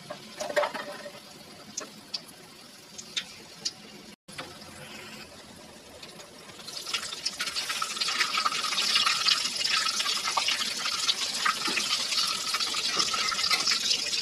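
Battered dage fritters deep-frying in hot oil in a wok: a few light clicks in the quieter first half, then from about halfway a loud, dense sizzling and crackling as the oil boils around the batter.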